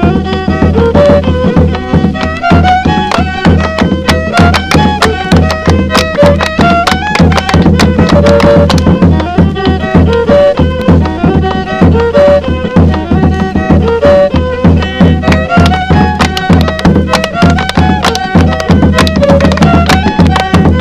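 Instrumental folk dance music: a fiddle plays a repeating melodic phrase over a steady, fast drum beat.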